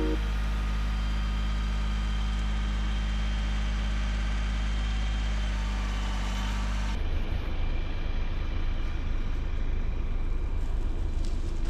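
Tractor engine running with a steady low hum; about seven seconds in the sound changes abruptly to a rougher, unsteady rumble.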